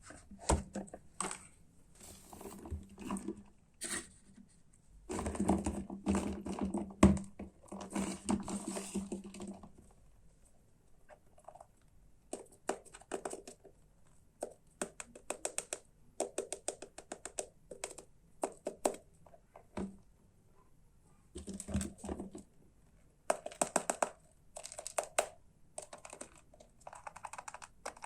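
Hard plastic toy pieces being handled, with quick runs of clicks and clattering knocks and a busier rattling stretch about five seconds in.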